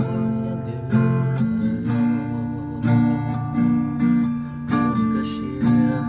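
Acoustic guitar being strummed, chords ringing with a new strum about every second.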